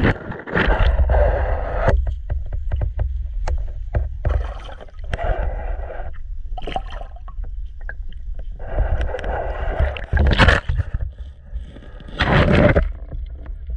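Water heard through a GoPro's waterproof housing held underwater: a steady low rumble with irregular swells of sloshing and scattered clicks and knocks on the housing.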